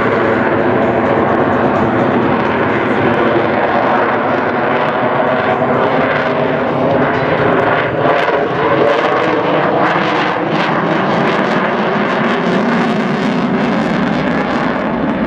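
F-22 Raptor's twin jet engines running loud and steady as it flies by, the tone slowly sliding in pitch.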